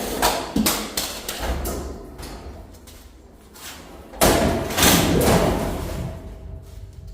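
Sheet-metal work: a run of knocks and clatters, then a louder rasping, scraping stretch that starts suddenly about four seconds in and lasts around two seconds.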